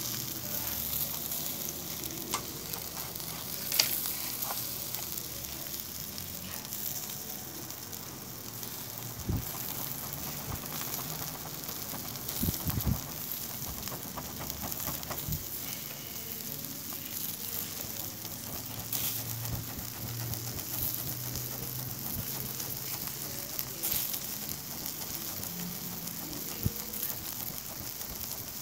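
Skewered mutton liver kebabs sizzling over a charcoal grill: a steady frying hiss with a few sharp crackles scattered through it.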